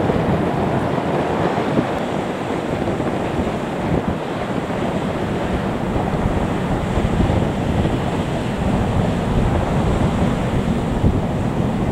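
Wind buffeting the microphone: a steady, toneless rush whose low rumble grows stronger about halfway through.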